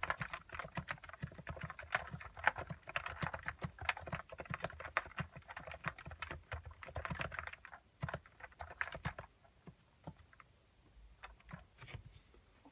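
Typing on a Plum 84 keyboard with 35 g Topre-clone electro-capacitive switches, lubed and without dental bands under the keycaps. Fast, steady keystrokes for most of the time, slowing to scattered single key presses after about seven and a half seconds and tapering off near the end.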